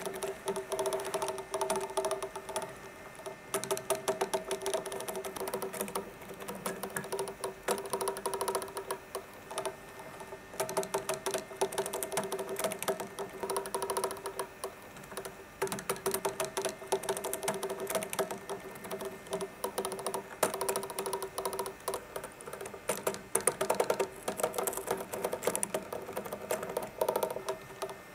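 Robot insect built from a cassette player, its motor humming steadily while its gears and hard legs click and tap rapidly on a wooden tabletop in uneven flurries as the feet slip without moving it forward.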